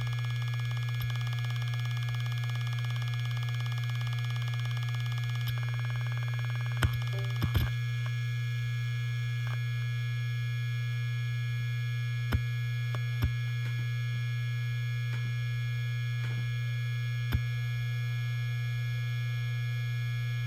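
Helium-filled hard disk drive running, a steady low hum with a fainter high whine, broken by a few short sharp clicks of the heads seeking.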